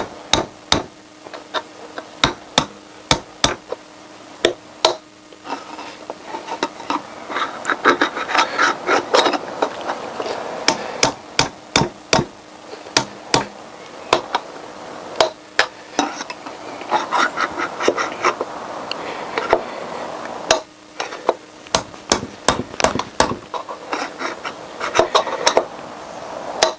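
Hammer striking a drift set against the inner spacer tube inside a 1988 Honda CBR1000F rear wheel hub, to drive out the old wheel bearing: dozens of sharp taps in uneven bursts of a few a second, with short pauses between. The tube is tight, held compressed by the bearings, so it is proving hard to shift.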